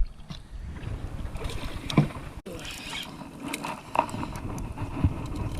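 Low steady rumble with scattered short knocks and clicks from a small fishing boat on the river: water and wind against the hull and fishing gear handled on board.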